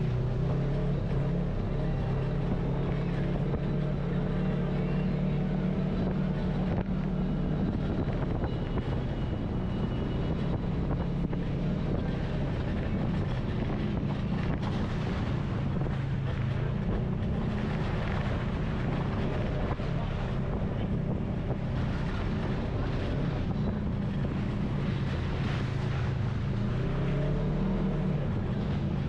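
Polaris RZR side-by-side engine running steadily while driving a dirt and gravel trail, its pitch dipping and climbing a little with the throttle. Tyres crunch over gravel, louder in the second half, and there is some wind on the microphone.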